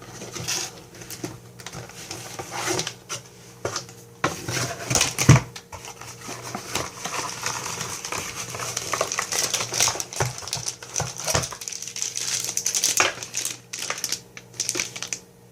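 Packaging being handled while a power adapter is unpacked: rustling and crinkling with scattered light clicks and knocks, the loudest knock about five seconds in.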